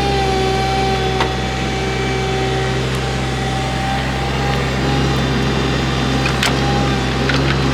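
A vehicle engine running steadily, with a steady whine over the engine sound and a few sharp knocks, the loudest about six and a half seconds in.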